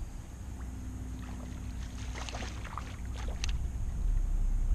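Low rumble of wind and water around a bass boat with a faint steady hum, and a scattered run of light clicks and ticks through the middle while a hooked bass is reeled in on a hard-bent rod. The rumble grows louder near the end.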